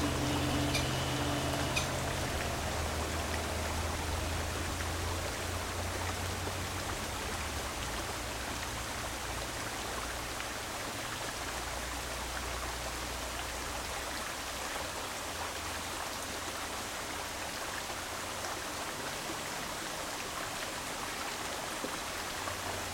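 Shallow rocky creek flowing, a steady rush of water over stones, with a low rumble underneath that swells and fades.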